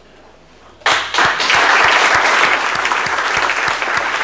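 Audience applause that breaks out suddenly about a second in and continues at a steady level.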